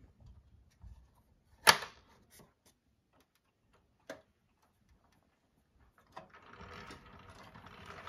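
Meccano model's metal bonnet panel snapping shut: one sharp metallic clack, then a lighter click a couple of seconds later. A scraping noise from handling the model's metal parts starts near the end.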